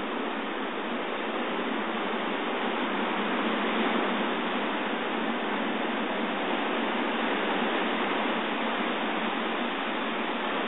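Ocean surf breaking and washing over a rocky shoreline at high tide, a steady rush of water that swells a little and eases without pause, thin-sounding through a phone microphone.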